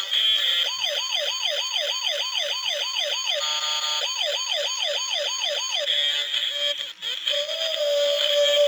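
Siren yelp: a quick rising-and-falling wail repeating about three times a second, in two runs with a short break between them, over music.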